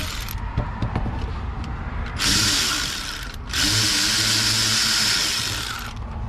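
Power tool spinning bolts in, in two runs: a short one of about a second, then a longer one of about two seconds, the motor speeding up as each starts. The bolts are only being run in snug, not yet torqued.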